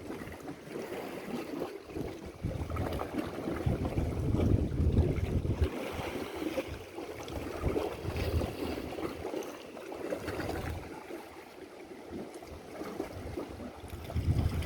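Wind buffeting the microphone in gusts over a steady wash of sea water.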